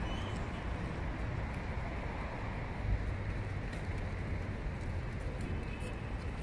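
Steady outdoor rumble of wind on the microphone mixed with distant road traffic, with a few faint short high chirps.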